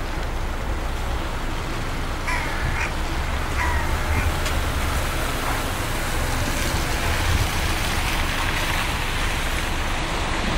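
Crow cawing a few short times, starting about two seconds in, over a steady low rumble of city traffic and wind.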